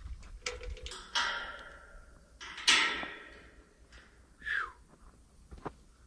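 Steel pipe gate clanking and rattling as the end of a fly rub is fastened to it: two sharp knocks, each ringing on for most of a second. A brief falling squeak comes near the end.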